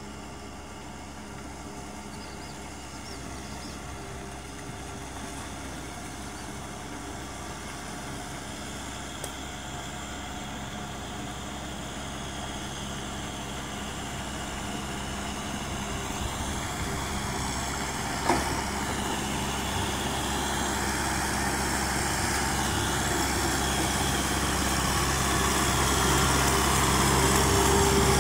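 Kubota M6040SU tractor's diesel engine running steadily under load as it works through flooded paddy mud. It grows steadily louder as the tractor approaches, with a single sharp knock about eighteen seconds in.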